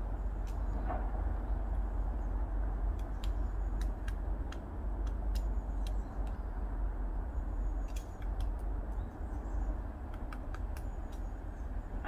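A woodpecker pecking at a tree: irregular sharp taps, sometimes several in quick succession, over a steady low rumble of road traffic.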